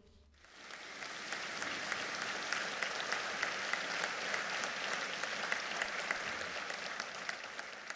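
Audience applauding, building up within the first second and then holding steady.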